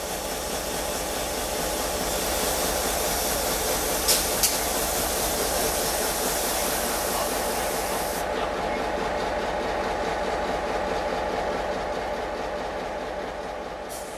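CK124 steam locomotive moving slowly, with a steady hiss of steam venting from around its cylinders that cuts off about eight seconds in, over a low rumble. Two short, sharp knocks come just after four seconds in.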